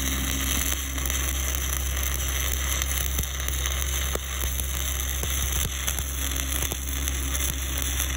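7018 low-hydrogen stick electrode (1/8-inch rod at about 120 amps) burning in a steady arc as it is dragged along the weld: an even, continuous crackling hiss with a few faint pops, over a steady low hum.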